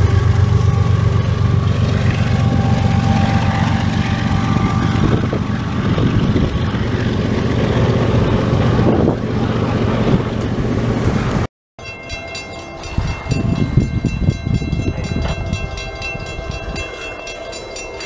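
Loud, steady low rumble of a freight train at a grade crossing, easing off near the end as the crossing gates rise. After a sudden cut about halfway through, a grade-crossing warning bell rings in rapid, even strokes while a CSX freight train approaches in the distance.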